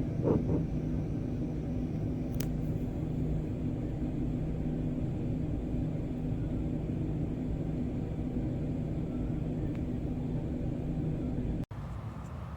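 Steady low mechanical hum and rumble, with a single sharp click about two and a half seconds in. Near the end the hum cuts off suddenly and gives way to a quieter background.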